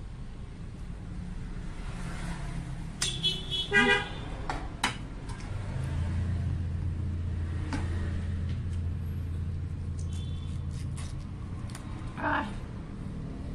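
A vehicle horn gives a short toot about three to four seconds in. A vehicle engine then hums low and steady for about five seconds, and a few light clicks sound over it.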